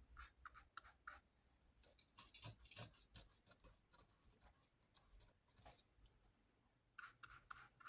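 Faint, scattered short scratches and light taps of a paintbrush dabbing acrylic paint onto paper, otherwise near silence.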